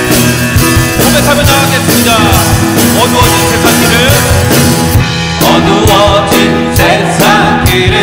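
Church worship band playing a rock-style Korean praise song, with drums keeping a steady beat under guitar and keyboard lines.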